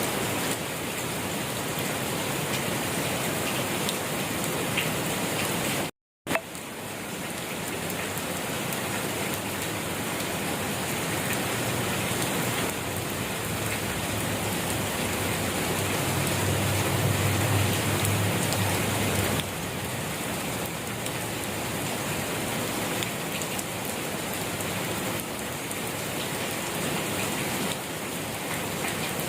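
Steady rain falling on a surface, an even hiss of many drops with no thunder. The sound cuts out completely for a split second about six seconds in, then resumes.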